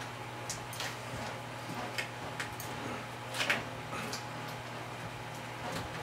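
Light wooden knocks and scrapes of honeycomb frames being worked loose in a wooden hive box, a scattering of short clicks with a slightly longer scrape about three and a half seconds in, over a steady low hum.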